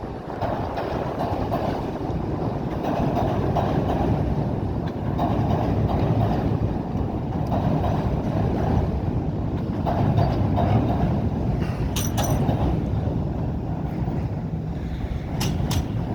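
Steady low rumble of a vehicle crossing a river, with wind buffeting the microphone and a few short clicks about twelve seconds in and again near the end.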